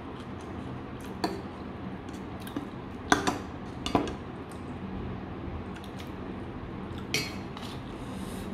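Metal spoon clinking and scraping against a ceramic bowl and a stainless steel bowl while scooping food. There are several sharp clinks, the loudest about three to four seconds in, over a steady low hum.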